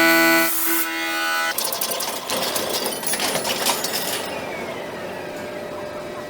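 Music with held notes for about the first second and a half, then a running machine tool with a fast clicking clatter that slowly grows quieter.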